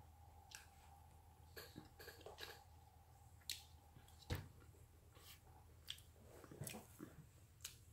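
Near silence: quiet room tone with a few faint clicks and a soft knock about four seconds in.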